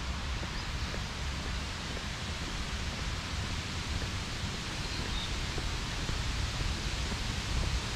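Steady outdoor noise: a low, fluttering wind rumble on the microphone with an even hiss over it, and a few faint, brief high chirps.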